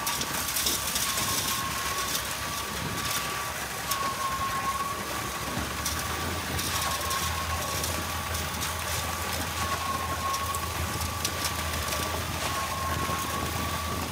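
Concrete pump truck running as it pumps concrete through its boom hose: a steady engine drone with a high whine that dips briefly every two to three seconds, and a deeper hum joining about six seconds in.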